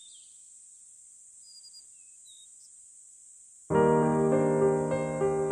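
A faint, steady high insect drone with a few brief bird chirps. About three and a half seconds in, piano-led background music starts abruptly and much louder.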